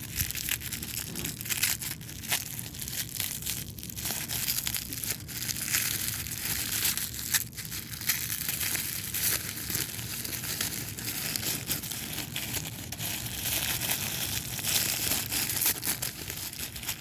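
Packaging being crinkled and torn by hand to unwrap a small toy, a continuous rustle with frequent sharp crackles.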